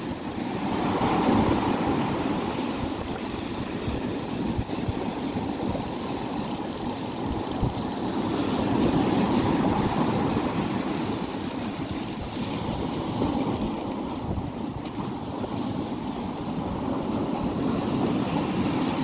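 Sea surf breaking and washing up the beach, a continuous rush that swells and eases, loudest about a second in and again around nine seconds, with wind buffeting the microphone.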